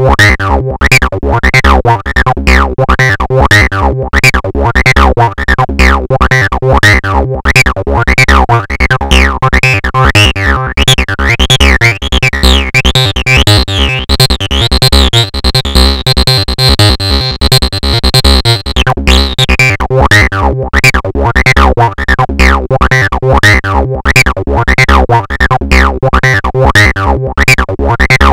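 Looping synthesized TB-303-style acid bassline played by the Orangator sound-generation software, in fast, evenly repeating notes. About twelve seconds in, its resonant filter is opened, adding a bright ringing squelch high up for several seconds before the tone turns duller again.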